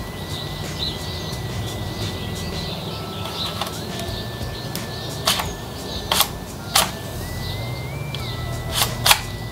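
Gel ball blaster's plastic priming lever being pulled and worked: several sharp clicks in the second half. Under them runs a steady low hum with a thin high whine that shifts up and down in pitch.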